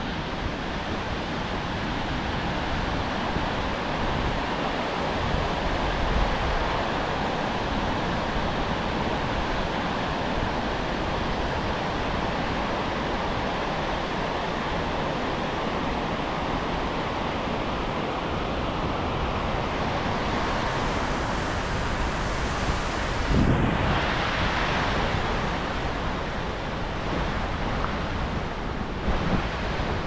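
Steady rush of water from the Skógá river's waterfalls, with wind buffeting the microphone. A louder buffet comes about 23 seconds in.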